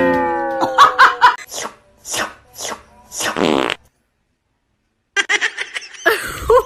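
A string of short fart-like blasts, the last one longer and buzzy, after a sudden falling-pitch sound at the start. After about a second of silence comes a quick run of short pitched sounds.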